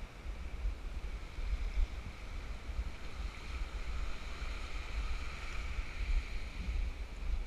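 Wind buffeting the microphone in gusts, over small waves washing onto a sandy, pebbly beach.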